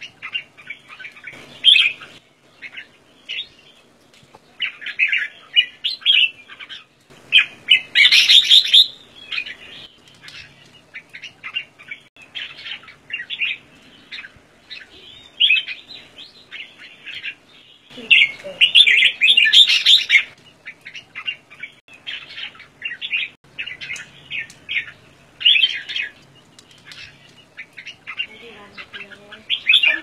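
Caged red-whiskered bulbul calling over and over in short, bright chirping phrases, with louder runs of calls about eight seconds in and again around nineteen to twenty seconds in.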